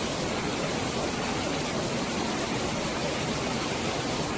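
Fast-flowing floodwater rushing steadily, an even roar of water.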